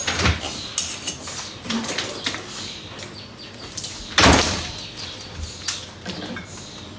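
Kitchen clatter: scattered light clicks and knocks of dishes and utensils being handled, with one louder bang about four seconds in.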